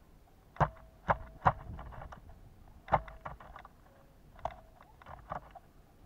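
Pileated woodpecker pecking at suet held in a wire cage feeder: about seven sharp knocks at irregular intervals, several followed by a short ringing note.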